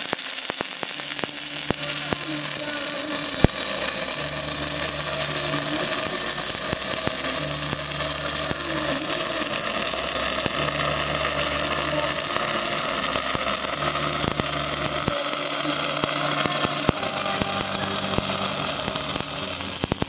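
Stick (SMAW) welding arc crackling steadily on steel pipe, with a low machine hum underneath that shifts up and down in pitch every second or two.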